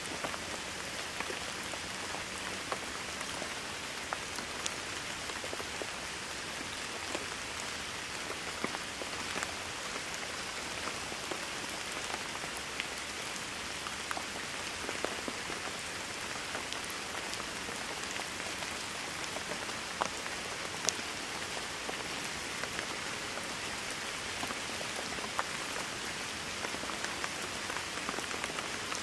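Steady rain falling on a surface, an even hiss dotted with the sharp ticks of individual drops.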